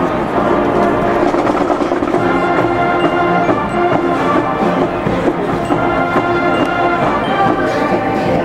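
A band with a strong brass section plays a funk-rock number, with sustained chords and a steady beat.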